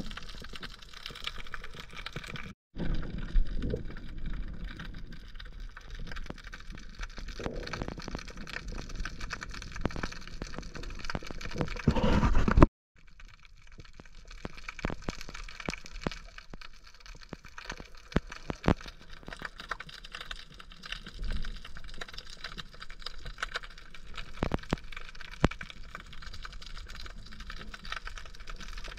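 Underwater sound during a free dive: a steady crackle of sharp little clicks over an even wash of water noise, with a louder surge of water movement shortly before the middle.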